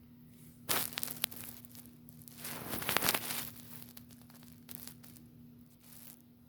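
Rustling, crinkling noise in bursts: a sharp crackle with clicks under a second in, a louder swell of rustling around the middle, and two fainter ones near the end, over a steady low hum.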